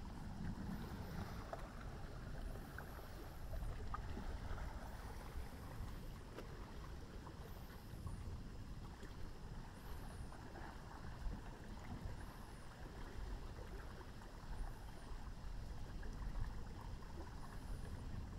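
Steady rush of river water lapping and wind, with faint high chirps recurring every second or two.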